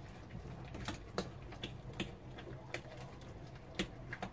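A utensil stirring a wet batter of soaked bread, milk, sugar and eggs in a bowl, tapping and clicking lightly and irregularly against the bowl about three times a second.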